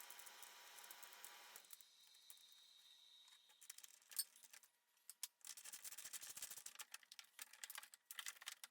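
Faint scattered clicks and light rattling, with a soft steady hiss during the first second or so.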